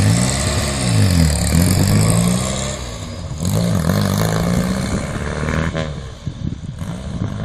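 A vintage Morris Minor saloon's four-cylinder engine accelerating away through the gears. The engine note rises, drops at each shift and climbs again, then thins out as the car draws off.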